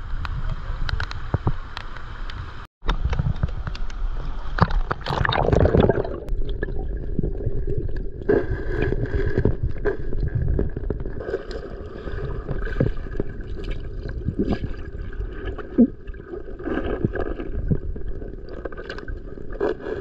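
Water splashing around an action camera as it goes under in a stream, then muffled underwater gurgling and bubbling with scattered clicks, heard through the submerged camera.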